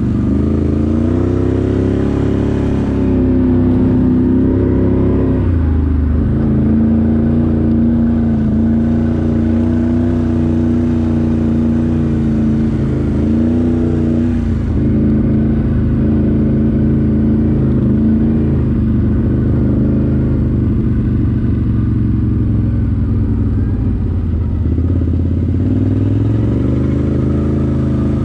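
ATV engine running as the quad is ridden along a dirt trail. The engine pitch rises and falls with the throttle, dipping about five seconds in and again around fourteen seconds, and climbing again near the end.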